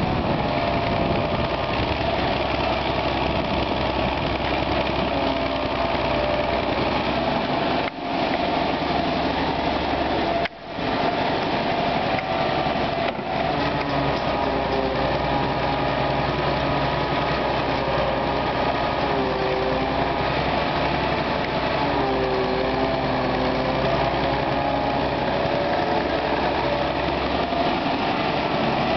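Soviet EO-4121 crawler excavator's diesel engine running steadily under working load while it digs and loads. Some of its tones dip and rise again about two thirds of the way in, and the sound briefly drops out twice.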